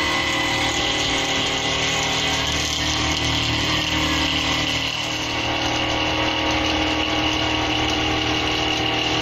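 SM-42 mini CNC milling machine running, its brushless spindle giving a steady high whine over a continuous machine hum.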